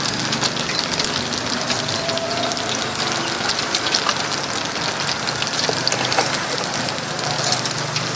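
Hot oil sizzling and crackling steadily as several pieces of food deep-fry in a large pot.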